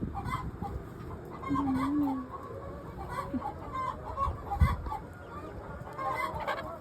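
Backyard hens clucking and calling, several birds at once, with short calls scattered throughout and a brief low thud about two-thirds of the way through.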